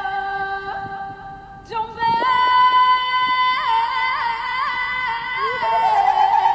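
Female singing: long held notes with wavering ornaments on them. There is a short break in the voice a little under two seconds in, then a new higher held note.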